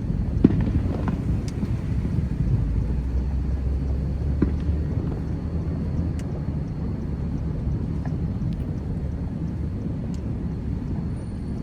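Distant fireworks: a steady low rumble with a few sharp cracks, the loudest about half a second in.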